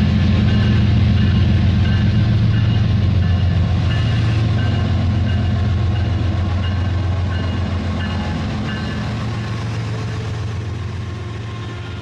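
Remote-control toy train's electric motor and wheels running on plastic track, a steady low hum that fades as the train moves away.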